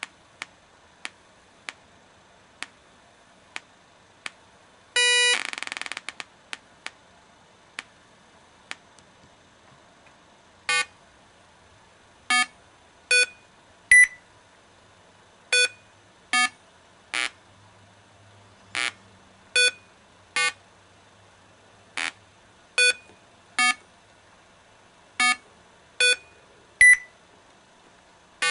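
An Arduino-driven loudspeaker ticking, the clicks growing slower as the potentiometer that sets the playback speed is turned, with a brief loud electronic buzz about five seconds in. From about eleven seconds it plays a simple song as short electronic beeps, roughly one note every 0.8 seconds.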